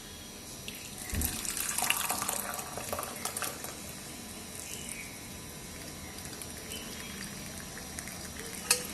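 Hot herbal decoction (kadha) being poured from the pan through a strainer, splashing from about one second in to about three and a half seconds, with a low knock as the pouring starts.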